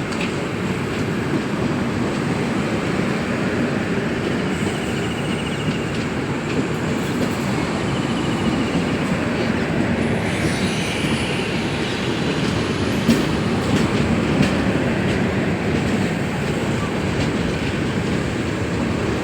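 Tejas Rajdhani Express passenger train rolling on the rails, a steady rumble of wheels, with a couple of sharp clacks about two-thirds of the way through.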